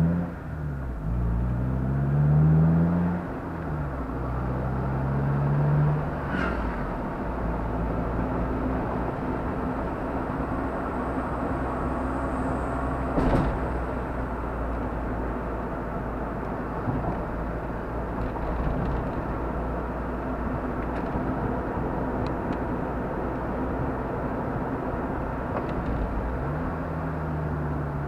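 Car engine and road noise heard from inside the cabin: the engine pitch climbs three times in the first six seconds as the car accelerates, then settles into steady tyre and road hum, with two sharp knocks about six and thirteen seconds in.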